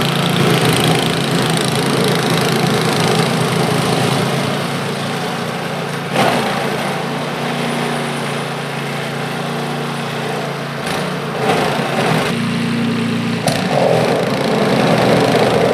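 Poulan Pro PP521ES snowblower's 136cc single-cylinder four-stroke engine running steadily while it clears snow, with a few short knocks in the middle.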